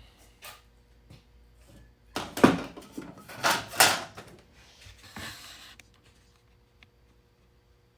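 Knocking, clattering and scraping of objects being handled and set down, in a burst lasting a few seconds that is loudest about two and a half to four seconds in.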